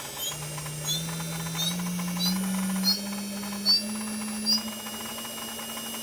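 JGL ATC spindle motor running while its speed is raised in steps, its whine climbing a notch about every half second to second, with a short chirp at each speed change. It carries a strange noise that the owner says does not change with RPM.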